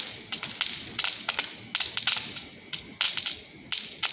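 Small chitput firecrackers going off: an irregular string of sharp cracks, many coming in quick clusters of two or three.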